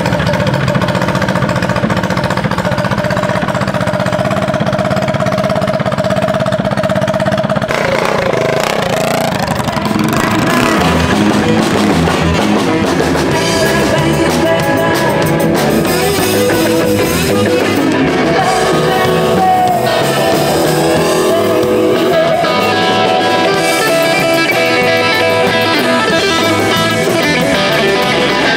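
Rock band music with electric guitar, drums and singing. For roughly the first eight seconds a small minibike engine runs steadily under it, before the band takes over fully.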